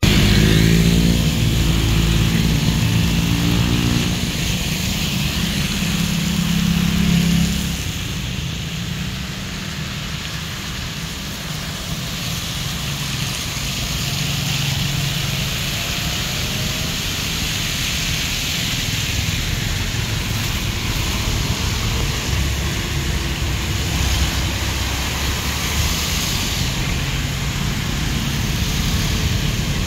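Motorbikes and cars passing along a wet, flooded street, their small engines running and tyres hissing through the water. A motorbike engine goes by close in the first seven or eight seconds, its pitch rising and falling; after that, steady wet-tyre hiss with fainter passing engines.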